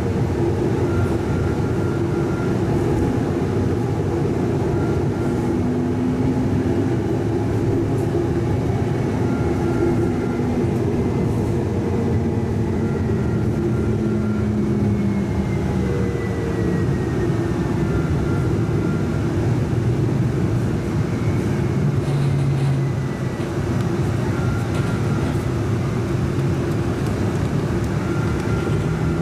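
Siemens S70 streetcar heard from inside while under way: a steady rumble of the running gear on the rails, with drive-motor whines that slowly change pitch as the car's speed changes.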